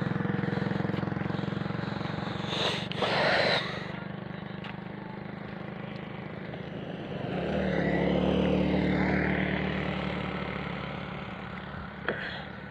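Small engine running steadily close by, with a brief burst of rushing noise about three seconds in. About seven seconds in a second engine swells louder, its pitch bending as it passes, and fades over a few seconds.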